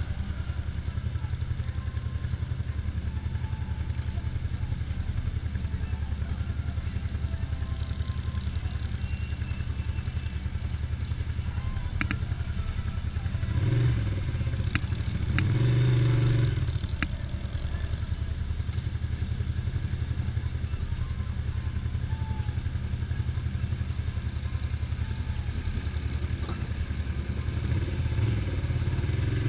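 Ducati Paso 750's air-cooled 90° V-twin running at low, steady revs, with wind on the helmet mic. It grows louder briefly twice near the middle.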